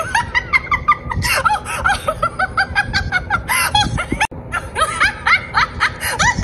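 High-pitched cartoon laughter, a long run of short giggles one after another, over background music. It is played back through a TV speaker.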